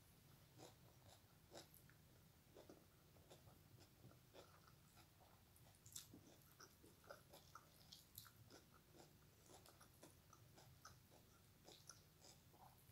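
Faint mouth and eating sounds, chewing with scattered small clicks and smacks, over a low steady hum.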